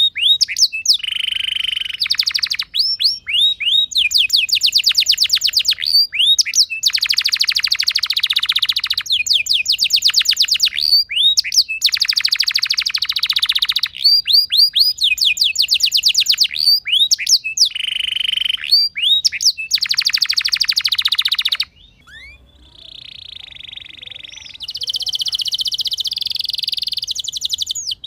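Domestic canary singing: phrase after phrase of very fast rolling trills and rapid chirping note series, each phrase lasting one to two seconds with short breaks between. About three quarters of the way through the song drops away briefly, then resumes as a denser, buzzier rattle.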